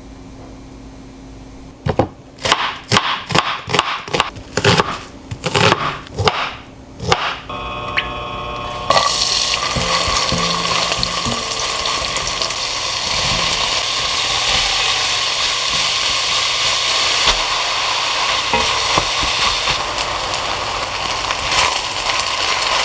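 A quick series of sharp knocks, then a brief pitched tone, then food sizzling steadily in a hot frying pan for the rest of the time.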